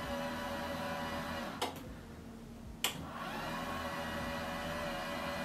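Dual-motor lift of a Maidesite S2 Pro electric standing desk running with a steady hum as the desk moves. It stops with a click about a second and a half in, then starts again with a click about a second later, briefly rising in pitch before running on steadily.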